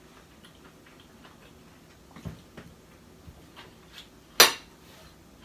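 Scattered light clicks and taps, with one sharp, loud click about four and a half seconds in.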